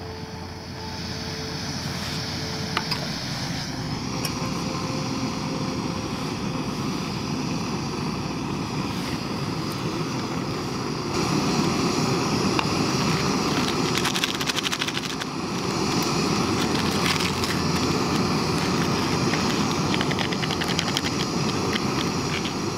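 Backpacking stove on a Primus gas canister burning with a steady hiss, getting louder about a second in and again about eleven seconds in. A few light clicks and rattles sound over it.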